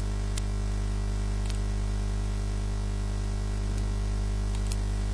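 Steady electrical mains hum with hiss from the microphone and recording chain: a stack of even low buzzing tones over a noise floor, with a few faint clicks.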